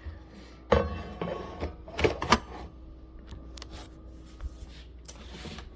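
Plastic and stainless clicks and knocks of a coffee maker's carafe being handled and its screw-on lid turned, with a sharp knock under a second in and a quick cluster of clicks about two seconds in.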